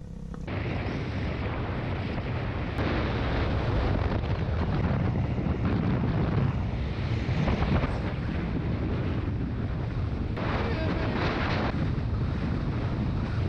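Wind rushing over the microphone on a moving motorbike, with the bike's engine running steadily underneath.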